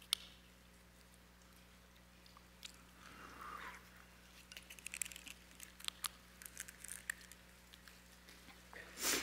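Quiet handling sounds of a small communion cup: a light click as it is opened, a soft sip about three seconds in, then scattered small clicks and paper rustles, with a short louder rustle near the end.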